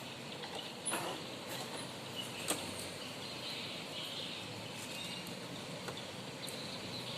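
Steady background noise with faint insect-like chirping, broken by a few sharp clicks; the sharpest comes about two and a half seconds in.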